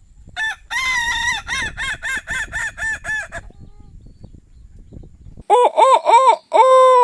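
Chicken calls: a quick run of about nine clucks, then a rooster's cock-a-doodle-doo made of three short notes and one long held note.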